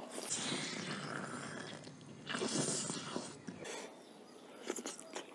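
Close-miked eating sounds: wet chewing and smacking as chicken meat is bitten and pulled off a drumstick, in two louder stretches with a few sharp mouth clicks near the end.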